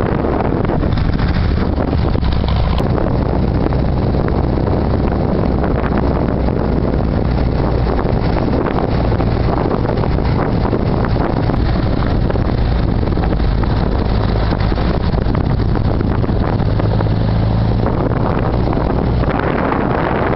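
Trike engine running steadily while riding on the open road, recorded from a handlebar-mounted camera, with wind buffeting the microphone throughout.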